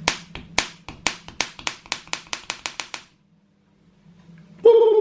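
A quick run of about fifteen sharp taps or clicks, hard object on hard object, coming faster and faster for about three seconds and then stopping. Near the end a steady pitched tone begins.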